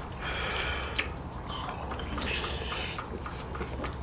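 People eating ramen noodles: two long slurps, one about half a second in and one about two seconds in, with chewing and small clicks of chopsticks and spoons between them.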